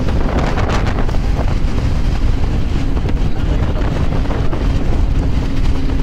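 Wind blowing on the microphone over the steady running noise of a moving bus.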